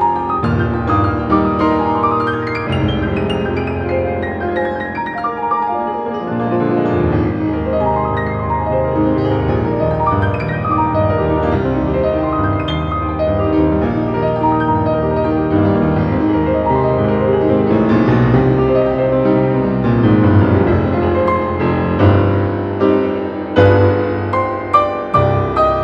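Grand piano playing a flowing, melodic piece of many quick notes, breaking into sharper, louder struck chords near the end.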